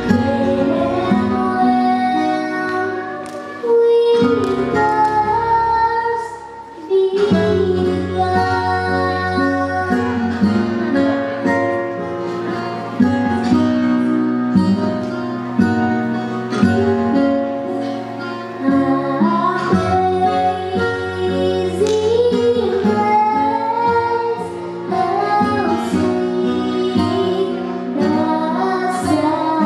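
Music: a female voice singing a song over instrumental accompaniment, with a short break in the phrase about seven seconds in.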